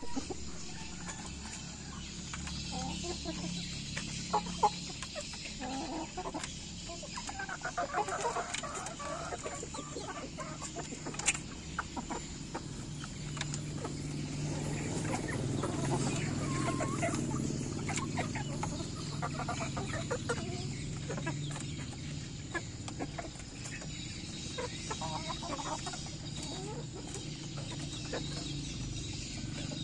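Young chickens clucking in a coop, with scattered short calls and a few sharp taps. A low hum rises and fades in the middle.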